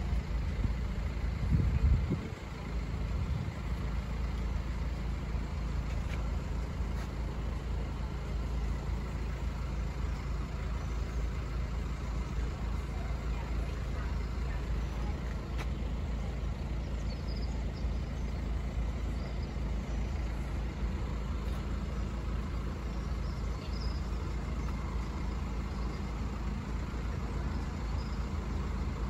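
Steady low rumble of a road vehicle engine idling, a little louder in the first two seconds.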